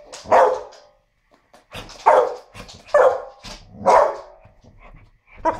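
A dog barking: about five loud, short barks roughly a second apart, with a longer pause after the first.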